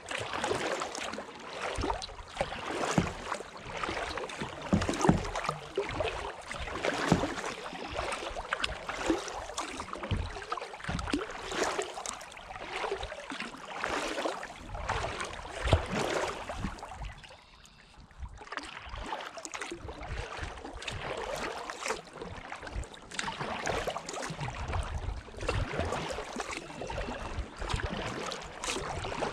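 Kayak paddle strokes in calm water: steady splashing and dripping from the blades with many small sharp knocks and drips, easing off briefly about two-thirds of the way through.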